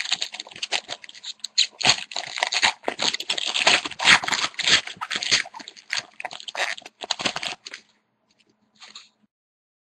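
Foil wrapper of a hockey card pack being torn open and crinkled: a dense run of sharp crackles for about eight seconds, then a brief faint rustle.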